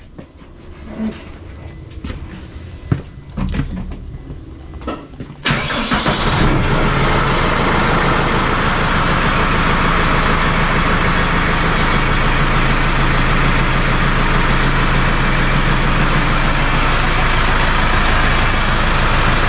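A few light clicks and knocks, then about five seconds in the Case IH 75C tractor's diesel engine starts and runs steadily and loudly.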